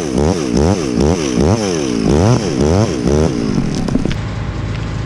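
Chainsaw revved again and again, its pitch dipping and climbing about twice a second. About three and a half seconds in the revving stops and it runs on more steadily, with a few sharp clicks.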